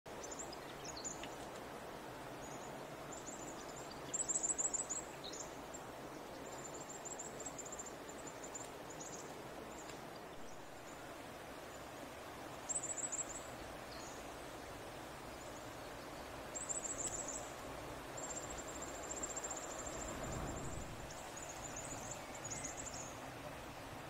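Outdoor bush ambience: a steady soft hiss with repeated very high, rapid chirping trills, the loudest bursts about four, thirteen and seventeen seconds in.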